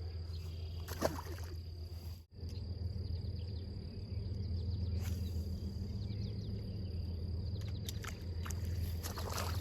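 Outdoor ambience: a steady low hum under a steady high insect drone, with a few faint clicks and rustles of handling.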